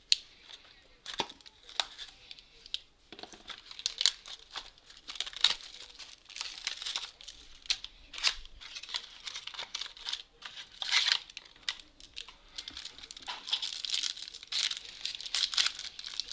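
A trading card pack's wrapper being torn open and crinkled by hand, in irregular rustling bursts with a few sharp clicks from the packaging.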